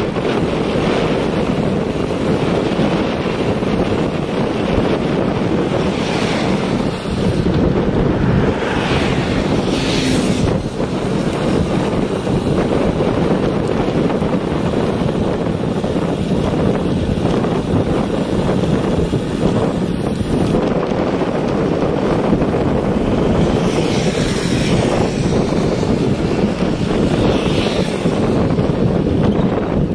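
Heavy wind rumble on the microphone of a camera travelling on a road bicycle at riding speed, steady throughout, with a few brief louder hisses.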